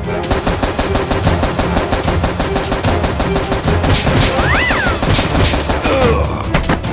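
Rapid automatic gunfire sound effects over background music.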